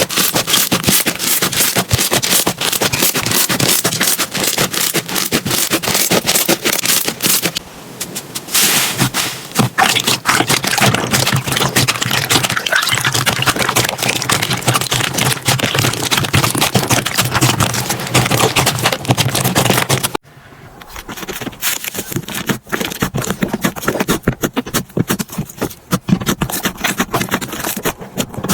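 Slime being worked, making a dense, loud run of crackling and popping clicks. About 20 s in it cuts to a quieter stretch of sparser clicks.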